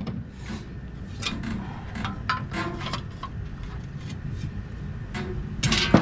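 Scattered metal knocks and scrapes as copper is worked off a dismantled pool heat pump, with a louder clank near the end.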